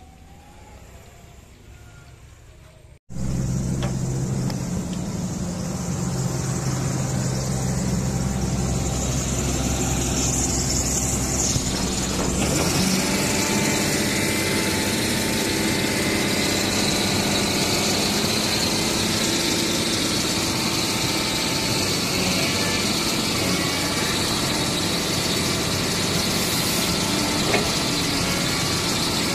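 Caterpillar 320D excavator's diesel engine running, cutting in suddenly about three seconds in. About twelve seconds in the low hum gives way to a higher, brighter sound as the engine speed comes up. The machine is now running normally after a faulty ECM ground was jumpered to the chassis.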